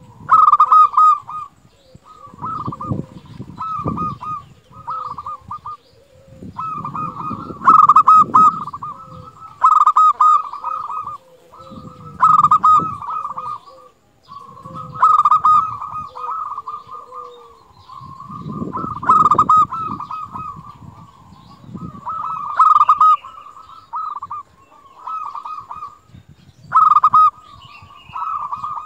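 Zebra dove (perkutut) cooing: repeated phrases of rapid, rolling coo notes, one after another with short pauses between.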